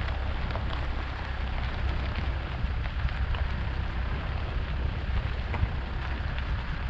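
Car driving on a rough gravel road: tyres crunching and popping small stones, with many scattered ticks over a steady low rumble of road and wind noise.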